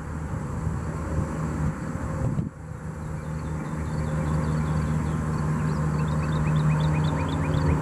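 A distant engine droning steadily, fading briefly and then growing louder toward the end. Short high falling chirps repeat several times a second through the second half.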